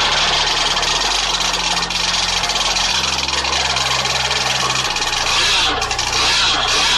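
Zenoah two-stroke petrol engine of a radio-controlled boat running at high revs through a tuned pipe: a loud, steady, hissing buzz.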